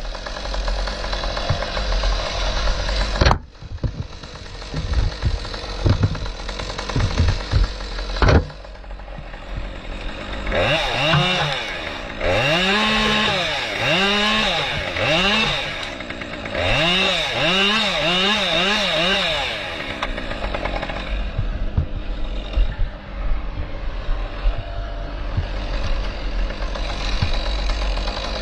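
Forestry machinery running loudly. In the middle there are two runs of quick revs, each rising and falling in pitch, about one a second. The sound changes abruptly a couple of times early on, where clips are joined.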